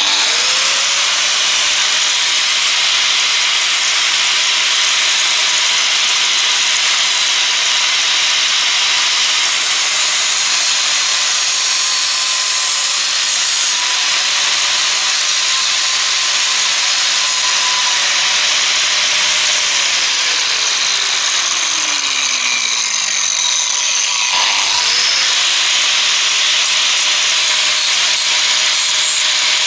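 Hitachi electric angle grinder with a thin cut-off disc spinning up and cutting a small plastic tube: a steady high motor whine over loud hissing grinding noise. About twenty seconds in it is switched off and winds down, then is started again a few seconds later and spins back up to speed.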